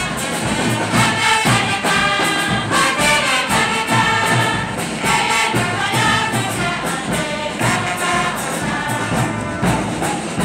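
Church choir and congregation singing a lively hymn together through microphones, over a steady percussive beat.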